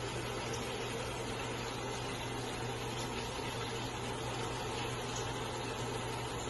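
Steady low mechanical hum with an even hiss beneath it, unchanging throughout.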